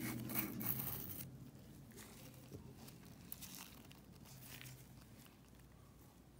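Faint rustling and crinkling of hands handling nail-supply jars and packaging, loudest in the first second or so, then a few faint scrapes and clicks over a low steady hum.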